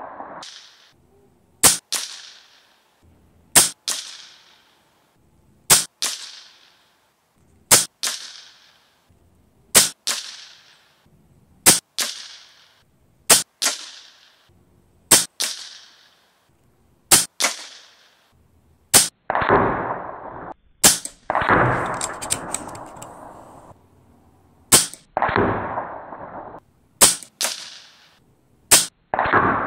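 RTI Arms Priest 2 PCP air rifle firing shot after shot, about one every two seconds: each shot a sharp crack followed closely by a second one with a short ringing tail. In the second half, two stretches of rustling noise lasting a second or two sit between the shots.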